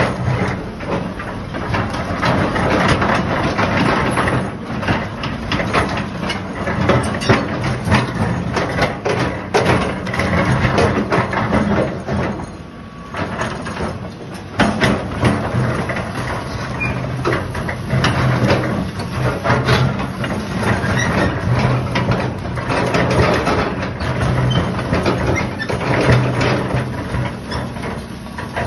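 Hitachi hydraulic crawler excavator's diesel engine running as the boom and bucket move and the steel tracks roll, with a steady engine hum under repeated clanking and clatter. It dips quieter for a moment about halfway through.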